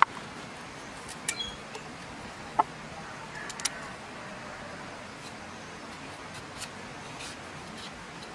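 A large knife working a raw carrot: a few sharp clicks and taps of the blade, the loudest about two and a half seconds in, over a steady background hiss.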